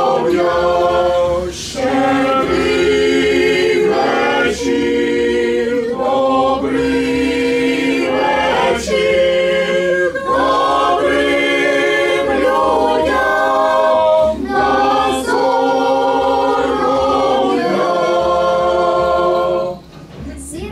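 Mixed group of men, women and children singing a Ukrainian Christmas carol (koliadka) a cappella, in phrases with short breaks for breath. The singing stops about a second before the end.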